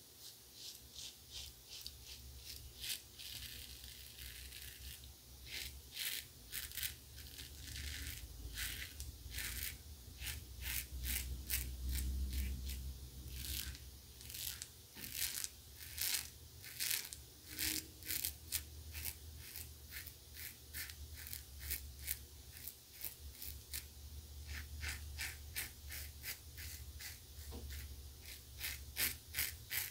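Pearl Flexi ver. 7 double-edge safety razor with a Gillette Winner Stainless blade scraping lather and stubble off the neck in quick short strokes, a crisp rasp with each stroke, about two to three a second in runs with brief pauses.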